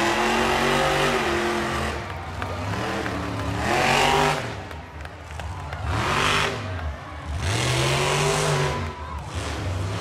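Monster truck engines revving up and falling back again and again, with louder blasts of throttle about four and six and a half seconds in.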